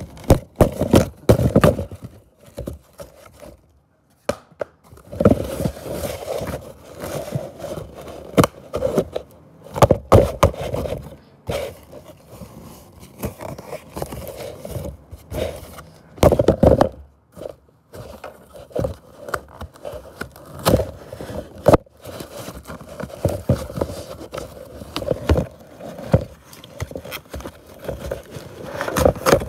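Cardboard scraping, rustling and knocking right at the phone's microphone, irregular and in bursts, as the phone moves about inside a torn cardboard box.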